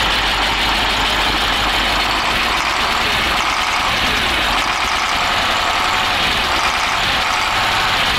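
KamAZ truck diesel engine idling steadily on its first start after installation. The owner says it shakes all over and puts this down to valves and injection timing that have not yet been adjusted.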